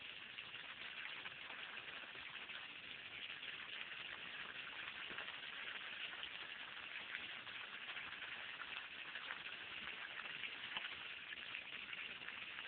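Water jet from a garden hose splattering steadily onto wet grass and a muddy puddle, a fine, even patter like rain.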